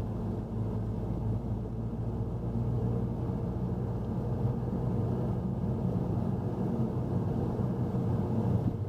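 Car driving, heard from inside the cabin: a steady engine hum with road noise underneath.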